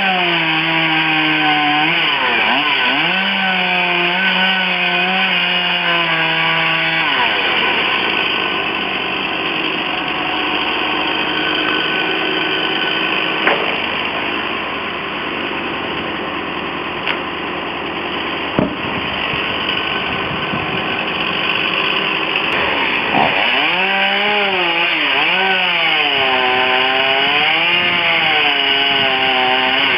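Chainsaw running at high revs, its pitch rising and falling with the throttle. In the middle stretch it is cutting through wood, the engine note giving way to dense sawing noise with a few short sharp knocks, before it revs freely again near the end.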